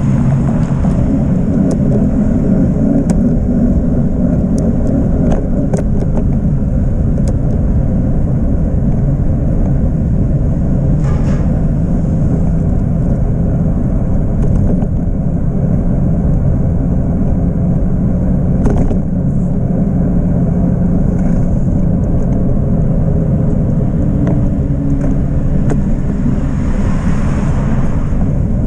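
Steady low rumble of wind and road vibration on a camera riding along on a moving bicycle, with a few sharp clicks and knocks scattered through.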